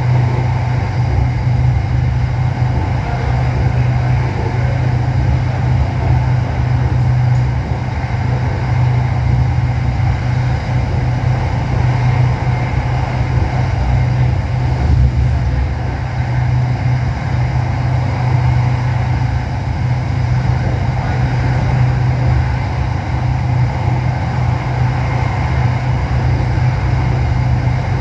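Running noise inside the cabin of an SRT Red Line electric commuter train travelling at speed on the elevated track: a constant low hum over a steady rushing noise.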